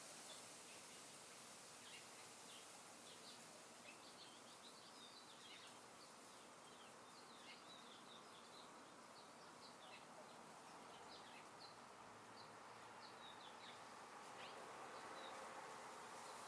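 Faint, quick high chirps from small birds, many short calls scattered throughout, over a soft steady wind hiss; a low insect-like buzz creeps in near the end.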